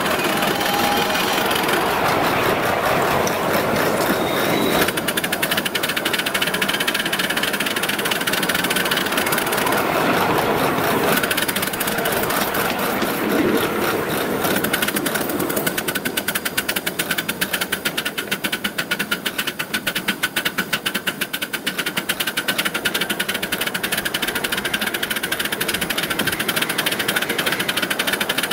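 A 5-inch gauge live steam locomotive (a Metre Maid 0-6-2 version of the Sweet Pea) running along the track, with a fast, even mechanical beat that becomes more distinct about halfway through.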